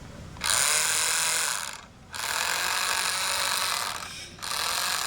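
Small electric motor and plastic gears of a remote-control toy truck whirring as its wheels are run, in three bursts of one to two seconds each.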